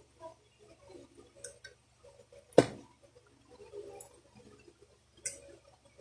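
Small clicks and taps of parts being handled and fitted on a Daisy Power Line 1200 air pistol, with one sharp, loud click about halfway through and another click near the end.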